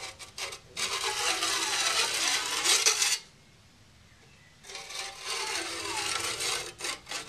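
Small diamond stone drawn along the side of a backsaw's steel teeth in two long strokes, each a grating scrape of about two and a half seconds with a pause between, and a few light clicks before and after. The stone is taking the high spots off the freshly set teeth so that the set is even on both sides.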